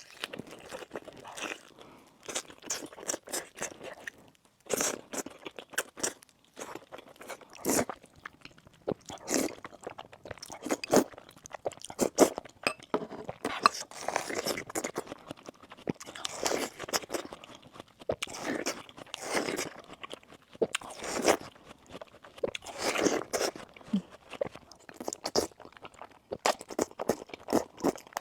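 Close-miked eating: crunchy bites and chewing, with irregular crackles and louder crunches every second or two.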